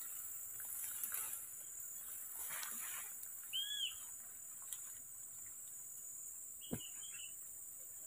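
A bird calls twice: one arched whistled note about three and a half seconds in, then a short chirpy call near the end, just after a sharp click. Leaves rustle in the first few seconds as someone pushes through ferns and undergrowth, over a steady high hiss.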